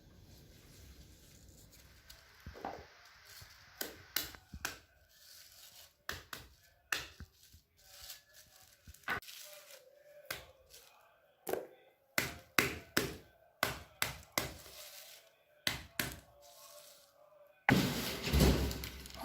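An irregular series of sharp knocks and thuds, some coming in quick pairs, followed near the end by a louder, longer burst of rough noise.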